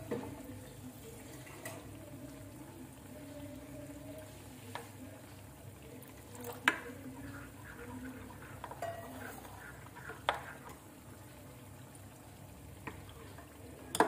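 Malpua frying in ghee in a steel pan: a quiet, steady sizzle with a few sharp clicks now and then.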